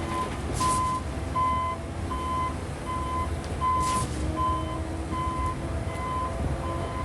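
Concrete mixer truck backing up: its reversing alarm beeps steadily, about one beep every 0.7 seconds, over the low rumble of the diesel engine. Two short hisses come about a second and four seconds in.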